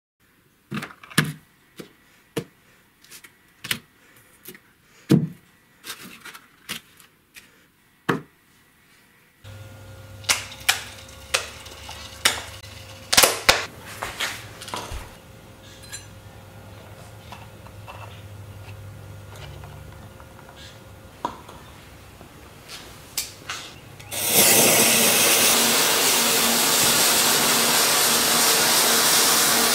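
Scattered sharp clicks and taps, then about 24 seconds in a lit fuse catches and burns with a loud, steady hiss as it throws sparks.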